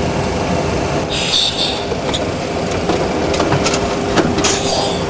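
Steady cockpit noise of a Boeing 737 Classic flight simulator: simulated engine and airflow noise with a constant hum. Twice, about a second in and near the end, a short hiss of the pilot breathing through his oxygen mask.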